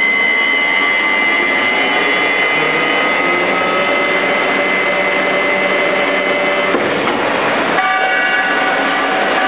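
Crane hoist drive test rig running: a loud, steady machine noise with several high whines from the motor and gearbox. About seven seconds in the whines drop out briefly, then a different set of whines takes over.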